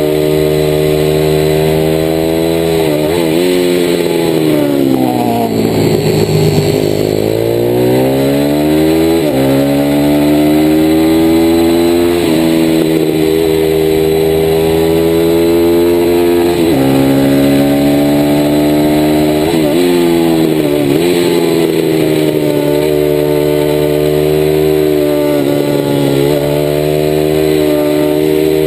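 A DHZ Outlaw 160cc mini motard's single-cylinder engine at racing pace, heard from on board. Its pitch climbs and drops sharply several times as it shifts up. About five to eight seconds in, it falls away as the bike brakes for a corner, then climbs back as it accelerates out.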